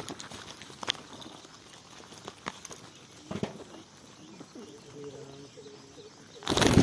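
Pigeons: scattered light taps and scratches, then a faint low cooing about four and a half seconds in. A much louder burst of sound starts suddenly near the end.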